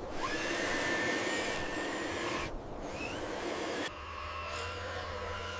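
A snow-clearing machine's motor running with a steady whir and rush of air. It breaks off briefly about two and a half seconds in, and from about four seconds in it settles into a lower hum.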